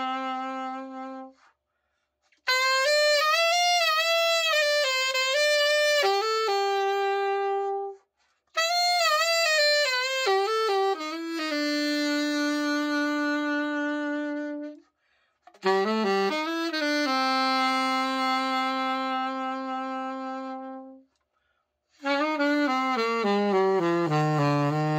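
Yamaha AS-100 alto saxophone played solo in short phrases of held notes and quick runs, separated by brief pauses for breath. Near the end it steps down a scale into the low register. This is a play test after a full overhaul and re-setup.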